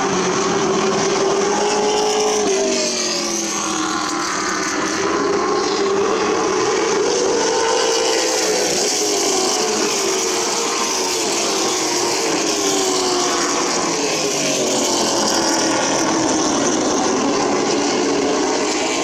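Several late model stock car engines running hard as the cars race around a short oval, their pitch rising and falling as they pass and go through the turns.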